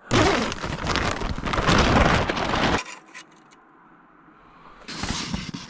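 A tent door zipper is pulled open in one continuous rasp lasting nearly three seconds. A shorter burst of rustling follows near the end.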